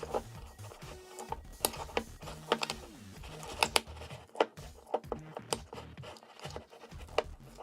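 A spoon stirring borax-activated glue slime in a bowl, giving irregular sharp clicks and taps as it works the thickening mixture. Faint background music underneath.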